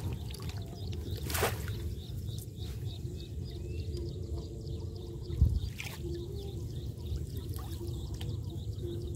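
Water splashing and dripping as a hoop net fish trap is lifted out of the water beside a wooden boat, over a steady low rumble. A single dull thump about five and a half seconds in is the loudest sound.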